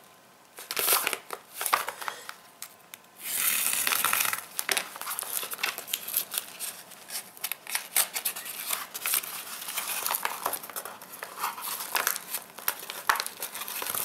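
Yellow padded bubble mailer being torn open by hand: a loud ripping stretch a little over three seconds in, then crinkling and crackling of the paper as it is pulled apart.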